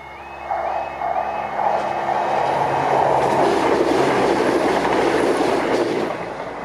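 Class 170 Turbostar diesel multiple unit passing over a level crossing. Its running noise builds about half a second in, is loudest in the middle and fades as the train clears. Underneath it, the crossing's alarm warbles steadily in a repeating two-tone.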